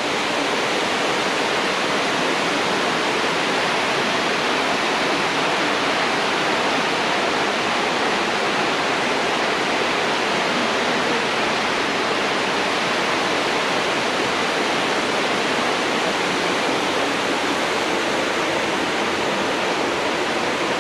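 Waterfall: the steady rush of a large cascade of falling water.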